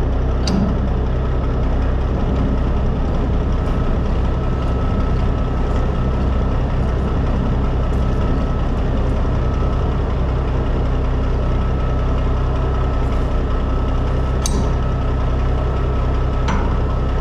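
Heavy air-braked truck's diesel engine running steadily at idle, with two sharp clicks, one about half a second in and one near the end.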